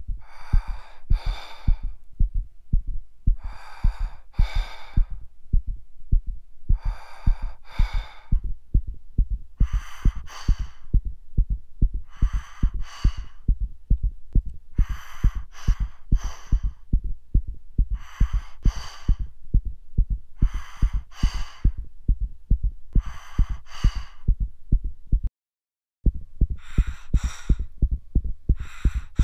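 Fast heartbeat thumping steadily over a faint low hum, with heavy breathing, an in-and-out pair of breaths about every three seconds. Everything cuts out for under a second near the end, then resumes.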